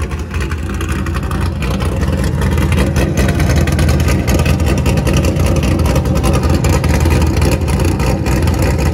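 Car engine running loud through its exhaust, filmed close to the exhaust tip; it swells a little about two seconds in and then holds steady.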